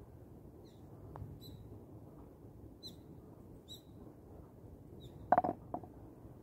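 A faint click of a putter striking a golf ball about a second in, over small birds chirping now and then. About five seconds in comes a quick cluster of loud, sharp knocks and one more just after, as the putted ball reaches the hole on the artificial-turf green.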